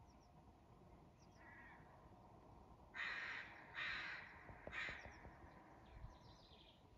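A bird giving three harsh calls about a second apart, with faint chirps of small birds in the background.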